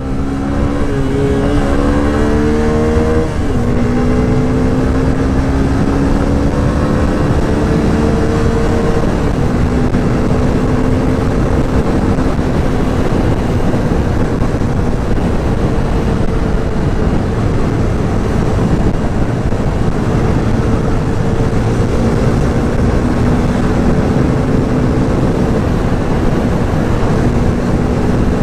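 Yamaha FZ16's single-cylinder four-stroke engine pulling hard under acceleration on a freshly fitted chain and sprocket set. The pitch rises, drops sharply at a gear change about three seconds in, climbs again, then settles into a steady cruise, with heavy wind noise on the microphone.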